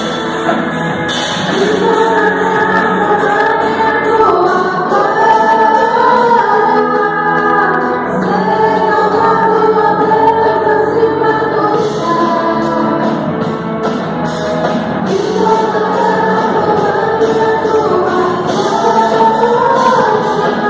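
A group of voices singing a gospel worship song together, with a steady rhythmic beat behind them.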